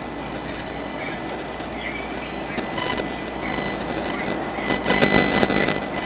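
SEPTA Market-Frankford Line M-4 subway car running along the track, heard from inside, with a steady high whine over the running noise. A louder clatter comes about five seconds in and lasts about a second.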